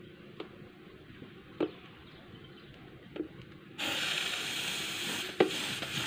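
A few faint clicks, then about four seconds in a steady hiss starts suddenly as the refrigerator compressor's cut charging tube releases refrigerant gas: only a little refrigerant is left in the system.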